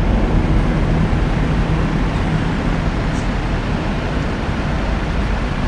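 Road traffic on a city street: a steady rush of vehicle noise that eases off slightly towards the end.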